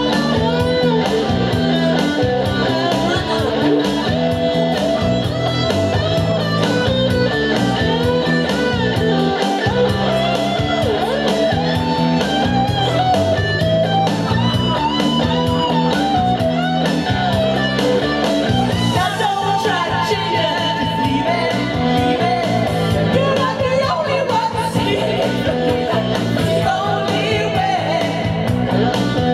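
A karaoke backing track playing a guitar-led rock instrumental break over the PA, with singing coming back in near the end.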